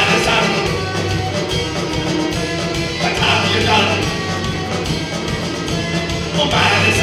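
Celtic punk band playing live, with electric and acoustic guitars, mandolin, accordion, bass and drums, and a man singing into a microphone.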